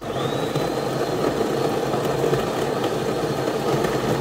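De'Longhi PrimaDonna Elite's built-in grinder grinding coffee beans for a latte. It is a loud, steady grinding with a thin high whine, starting suddenly.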